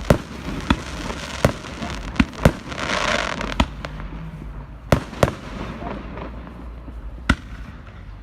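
Firework display: about nine sharp bangs of aerial shells bursting at irregular intervals. About three seconds in there is a second of dense hiss.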